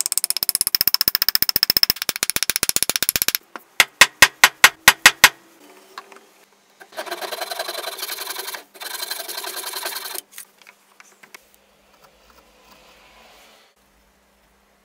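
A hammer driving a glued wooden wedge into the top of a hatchet handle: a run of fast, light taps, then about eight sharp, loud blows. Then two long strokes of a hand saw cutting off the protruding handle end and wedge above the hatchet head.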